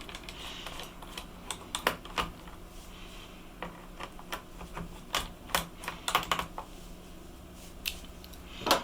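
Irregular light plastic clicks and taps as a cover panel is worked off the underside of a Toshiba Dynabook laptop, with a louder click near the end.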